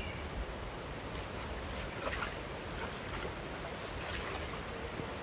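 Steady rushing outdoor background noise with a faint high steady tone, and a few soft rustles or clicks about two seconds in and again around four seconds.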